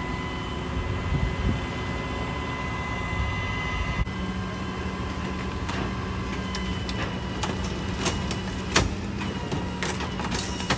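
Idling heavy trucks, a steady low rumble. About four seconds in a steady low hum joins it, and from about six seconds on come scattered sharp knocks and clicks, the loudest near nine seconds.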